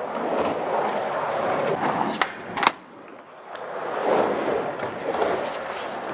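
Skateboard wheels rolling over a smooth concrete skatepark floor, with sharp board clacks about two seconds in. After the clacks the rolling drops away for under a second, then starts again.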